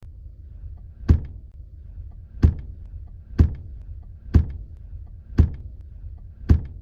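Six heavy thuds, roughly a second apart, over a steady low rumble.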